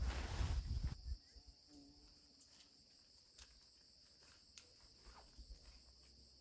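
Steady high-pitched insect chorus, with a loud rustling noise during the first second that stops abruptly, and a few faint ticks after it.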